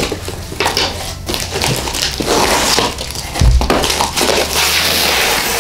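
Cardboard being torn off a large shipping box: repeated noisy ripping and crumpling as flaps and strips are pulled away, with a heavy thump about three and a half seconds in.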